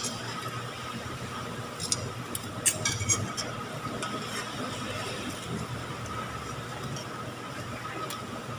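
Oil sizzling steadily as shredded sweet potato pancakes shallow-fry in a wok, over a faint steady hum. Metal tongs click against the pan several times about two to three and a half seconds in as the pancakes are pressed and moved.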